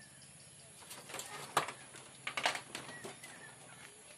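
Irregular knocks and rustles, the handling noise of a phone carried by hand while walking, loudest in a cluster between about one and three and a half seconds in, with a few short, faint bird chirps.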